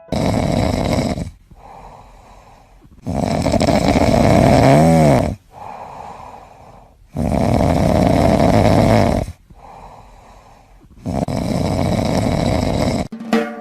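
An animal snoring loudly: four long, rasping in-breaths about four seconds apart with quieter breaths between them, the second with a short squeak that rises and falls in pitch.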